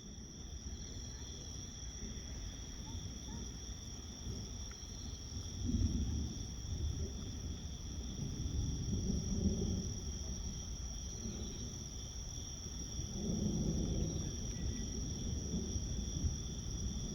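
Steady, high-pitched chirring of crickets over a low rumble that swells three times.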